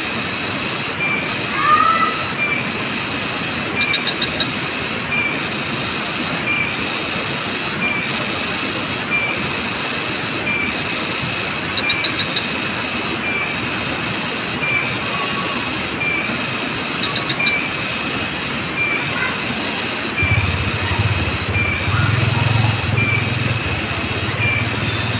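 Insects droning in a steady, high-pitched chorus that pulses about once a second, with short chirps every few seconds. A low rumble joins near the end.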